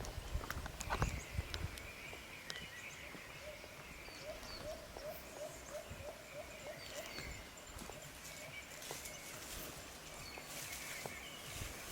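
Quiet outdoor ambience. A bird gives a run of about ten short, evenly spaced repeated notes in the middle, over faint higher chirps and a few small clicks. There is a low rumble of wind or handling in the first second or two.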